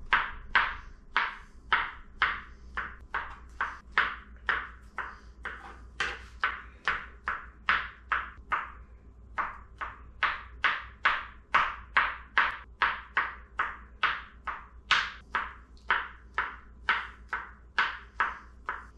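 Small kitchen knife chopping mushrooms on a cutting board: a steady run of sharp taps, about two to three a second, with a brief pause about halfway through.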